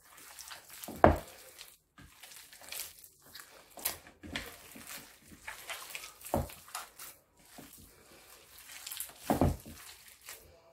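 Hands kneading sticky date paste with olive oil in a bowl: irregular wet squishing and smacking. Three louder dull thumps come about a second in, past the middle and near the end.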